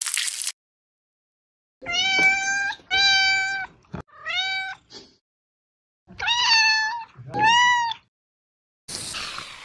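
A cat meowing five times: three meows, a short pause, then two more, each call just under a second long and fairly steady in pitch. A short burst of hiss comes at the very start and again near the end.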